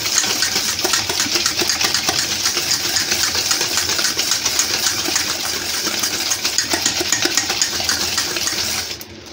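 Butter and powdered sugar being beaten by hand in a stainless steel bowl: a utensil stirring and scraping against the steel in rapid, continuous strokes, breaking off briefly near the end.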